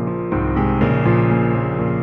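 Background piano music, slow sustained notes and chords; a fuller chord with deep bass sounds about a third of a second in.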